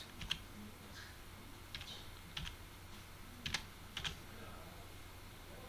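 Computer keyboard typing: a handful of faint, separate keystrokes spaced out, as numbers are entered one cell at a time.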